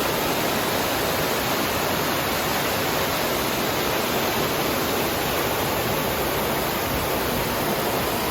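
Mountain creek rushing steadily, a constant full-range sound of running water.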